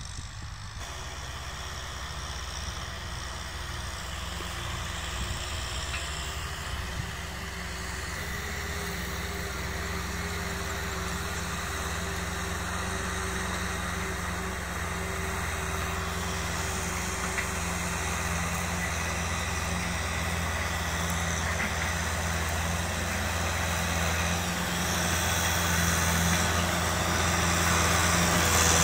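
Kubota tractor's diesel engine running steadily under load while plowing a dry field, growing steadily louder as the tractor comes closer.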